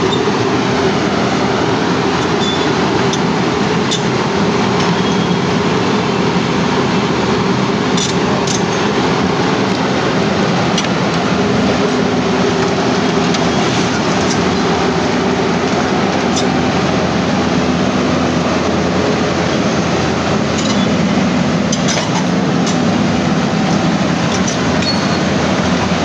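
A heavy engine running steadily under a loud, continuous rumbling noise, with scattered faint clicks.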